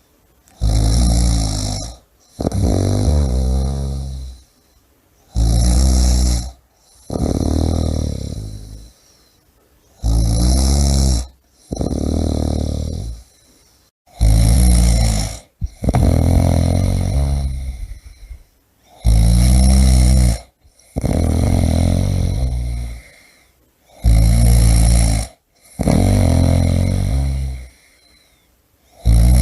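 A person snoring in a steady rhythm. Each breath is a two-part snore, a short rasping one followed by a longer one that fades away, with a brief quiet between breaths, about once every four and a half seconds.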